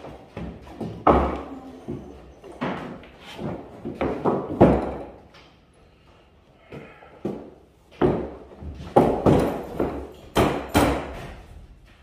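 Wooden boards knocking and thudding against a wooden workbench frame as a board is lowered and set into place: a string of sharp knocks in clusters about a second in, from about 2.5 to 5 seconds in and again from about 8 to 11 seconds in.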